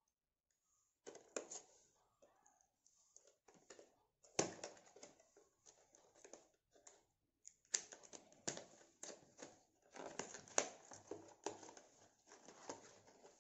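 A small cardboard retail box being opened by hand: paperboard flaps and the inner packaging rustling, crinkling and scraping, with sharp snapping clicks. It starts about a second in and goes on irregularly, with the loudest snaps about four and a half, eight and ten and a half seconds in.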